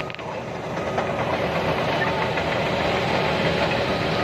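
Liebherr PR745 crawler bulldozer's diesel engine running steadily under a dense mechanical clatter. The sound dips briefly at the very start, then holds.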